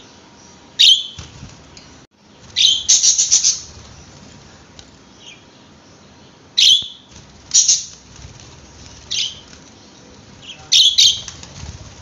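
Caged budgerigars giving short, sharp chirps in bursts every second or two, some in quick clusters, with wing flutter as a bird moves about the cage.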